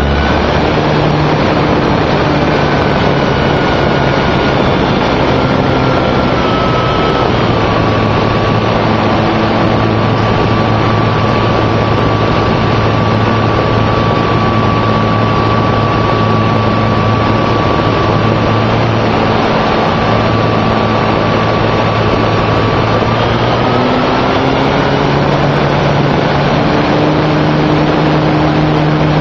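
A radio-controlled model airplane's motor and propeller running loudly right beside the onboard microphone, with air rushing past. Its pitch drops about seven seconds in, holds steady, and rises again near the end as the throttle changes.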